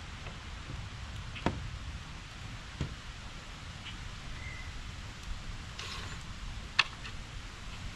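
A few sharp knocks and clicks, two of them loud, from a cordless drill being worked against a plywood panel, over a steady low rumble.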